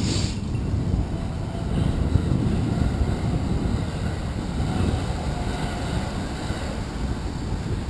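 Wind buffeting a GoPro's microphone on a moving bicycle: a steady, fluttering low rumble, with road traffic passing alongside and a short hiss right at the start.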